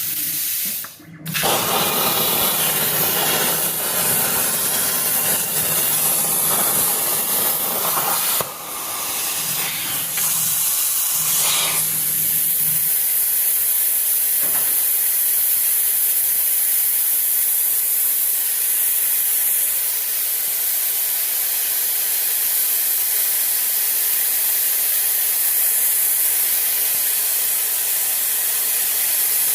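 CNC plasma cutter torch arc hissing steadily as it cuts through metal. The sound cuts out briefly about a second in, then resumes.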